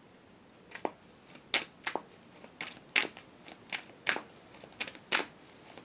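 A deck of tarot cards being shuffled by hand: a string of short, sharp card snaps and slaps, a little under two a second.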